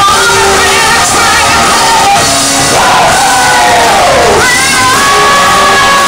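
A female lead vocalist sings a brassy Broadway show tune live, backed by ensemble voices and a band. About halfway through, the voice slides a long way down, then holds high notes.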